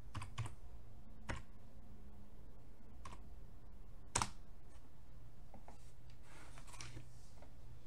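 Computer keyboard key presses: a few separate keystrokes spread out over several seconds, the loudest about four seconds in as the Enter key runs the command, over a faint low steady hum.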